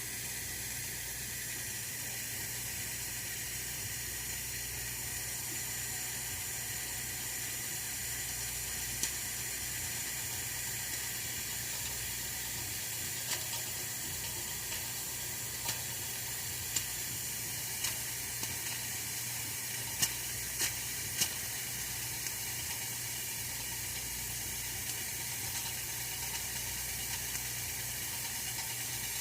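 Oil-filled radiator heater running: a steady hiss, with scattered sharp ticks starting about nine seconds in.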